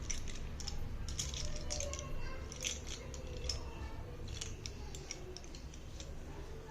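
Slate pencils and their packaging handled close to the microphone: a run of small crisp crackles and clicks, busiest in the first half and thinning out later, over a low steady hum.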